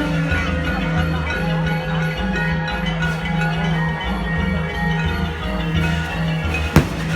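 Traditional Thai funeral ensemble playing mallet percussion (xylophone and gong-chimes) over a steady low beat, with one sharp firework bang near the end.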